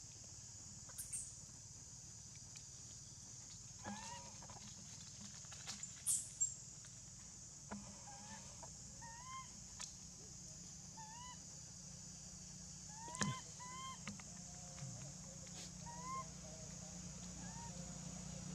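Baby macaque giving faint short rising squeaks, repeated every second or so, while an adult holds it by the tail. A few sharp clicks cut in, the loudest about six and thirteen seconds in.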